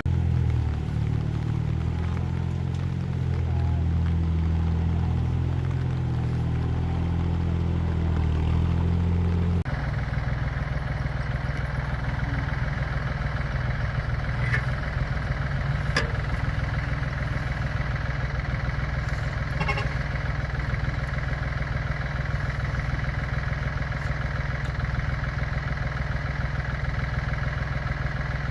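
Farm machine's engine running steadily; its sound changes abruptly about ten seconds in, then runs on evenly.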